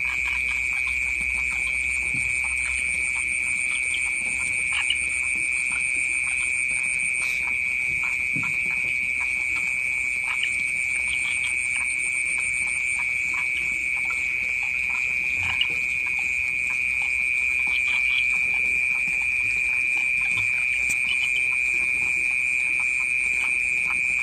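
Crickets trilling at night: one steady, high-pitched note that never breaks, with a fainter, higher pulsing chirr joining in twice for a few seconds, and a few faint ticks.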